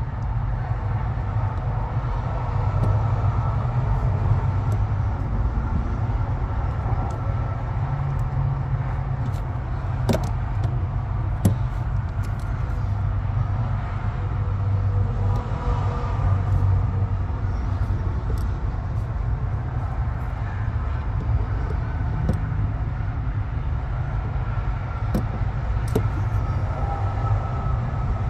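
Steady low engine rumble of an idling truck, with a few small sharp clicks and taps scattered through it.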